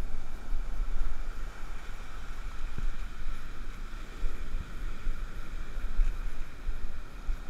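Wind buffeting the microphone, with a steady low rumble, over the wash of surf breaking and running up a sand beach.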